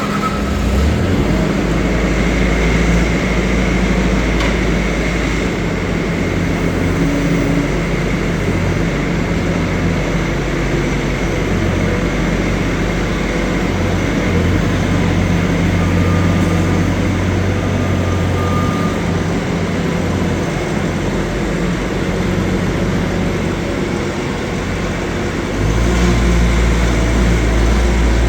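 Bobcat S530 skid steer's diesel engine running steadily, its note shifting a few times and turning louder about 25 seconds in.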